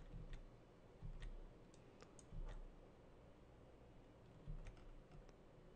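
Faint clicking of computer keyboard keys, about a dozen scattered clicks with a few soft low thumps, as the Alt+A shortcut is tapped over and over.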